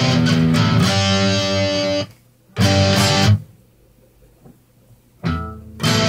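Homemade electric baritone guitar, capoed with an ice-cream stick and rubber bands, strumming chords through an amplifier. The chords stop short about two seconds in, one brief chord follows, then a pause of nearly two seconds before the strumming starts again near the end.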